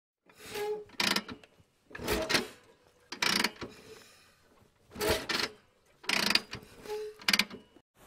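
Intro sound effect of mechanical clanks and ratcheting, gear-like strokes: about eight separate hits spaced unevenly, some with a short metallic ring, ending abruptly just before the picture opens.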